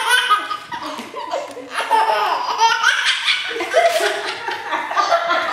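A baby laughing hard: hearty belly laughs in repeated short bursts.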